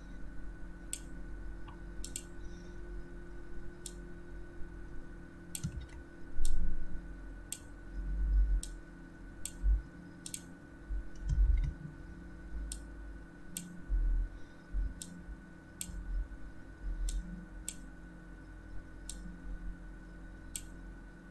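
Sharp clicks at an irregular pace, roughly one a second, from computer input while drawing, with a few dull low thumps among them and a faint steady hum underneath.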